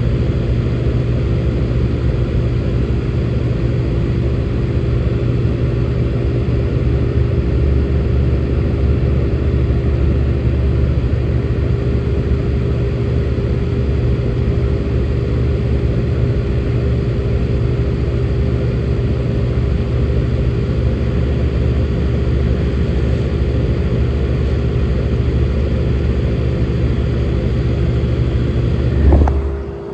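1967 Airtemp Imperial fan running with a steady hum and an airy rush. Near the end there is a short thump, and the sound drops off.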